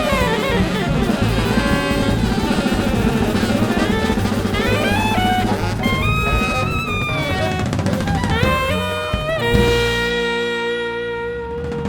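Jazz music: busy drums with snare rolls and rimshots under quick saxophone lines. About nine and a half seconds in it settles into one long held note that slowly fades.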